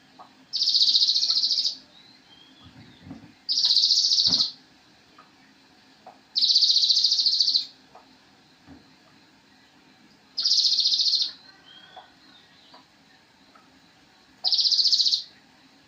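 A sogon bird singing a rapid, high-pitched trill about a second long, repeated five times at intervals of three to four seconds.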